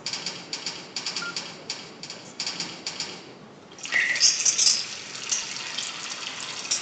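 Sound effects from an animated presentation heard over hall speakers: a run of quick, irregular light clicks, then from about four seconds in a louder hiss of running water.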